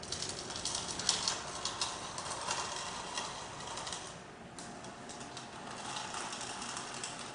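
Light scratching and ticking of a marker drawn along vinyl plank flooring, mixed with the handling rustle of a tape measure.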